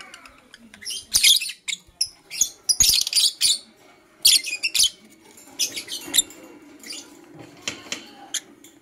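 Lovebirds chirping: sharp, high-pitched chirps and squeaks in quick irregular clusters.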